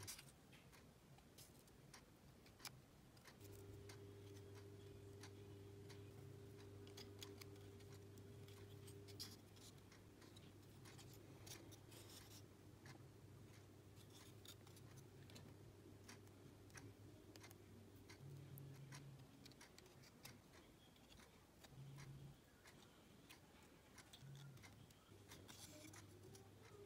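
Near silence: soft scattered clicks and taps of thin laser-cut plywood puzzle pieces being handled and pressed together, over a faint steady hum.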